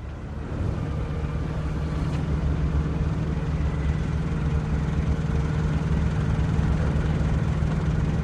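Seaport ambience dominated by a boat engine's steady low drone, fading in over the first second.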